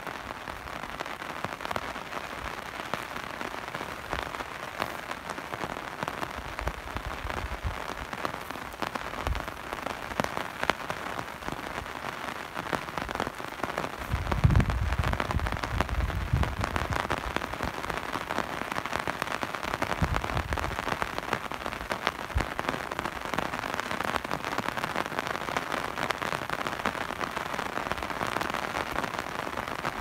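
Steady rain falling, an even hiss of drops with many small ticks of individual drops. About halfway through a low rumble comes in for a couple of seconds, and the rain stays slightly louder after it.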